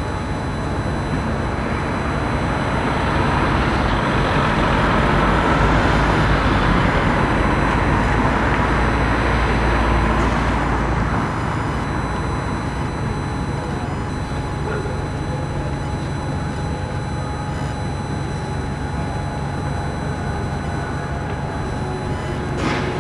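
Road traffic with a heavy vehicle passing close by. Its deep rumble swells over the first few seconds and drops away about eleven seconds in, and a short hiss comes near the end.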